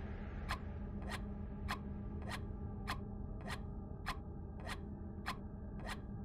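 Electronic backing track of a gesture-percussion piece: sharp, evenly spaced ticks, about one every 0.6 s, over a steady electronic drone.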